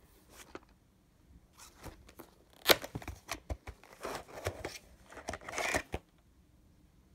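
Plastic video cases being handled: a run of clicks, knocks and rustling as a VHS tape is taken out of its plastic clamshell case. The loudest knock comes about two and a half seconds in, and the handling stops about a second before the end.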